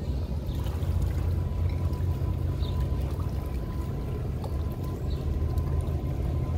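Harbour water sloshing and lapping against a moored yacht's hull and the dock, over a steady low rumble.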